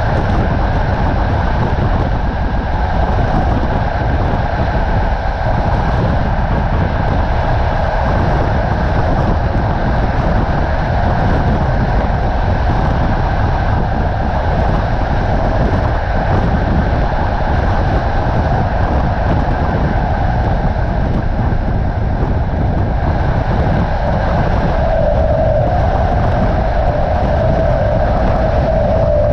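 Passenger train running at speed, heard at a carriage window: a steady loud rumble of wheels on the rails with rushing air. A steady tone joins the noise near the end.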